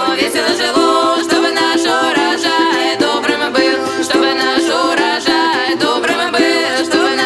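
Background music: singing over a plucked string accompaniment.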